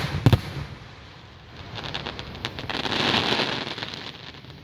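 Aerial firework shells bursting with two sharp booms at the start. A dense crackling follows, swelling to a peak about three seconds in and then fading: crackling stars going off after the bursts.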